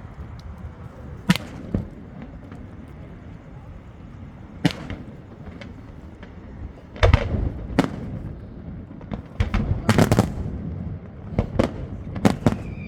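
Fireworks exploding in a display: separate sharp bangs, a few spaced out at first, then coming faster and louder in the second half, over a steady low rumble.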